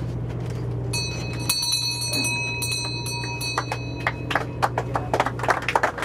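A bell struck about a second in and ringing out for about three seconds over the boat engine's steady low hum, marking the wreath laid at sea in memory of the fallen. From about three and a half seconds, a patter of sharp taps that thickens toward the end.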